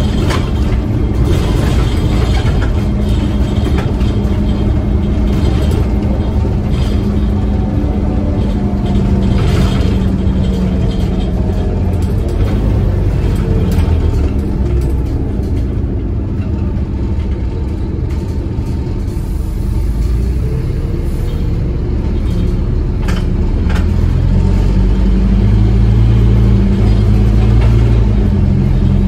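Scania N230UD double-decker bus heard from inside the passenger saloon, its engine and road rumble running steadily as it drives. The sound grows a little louder towards the end.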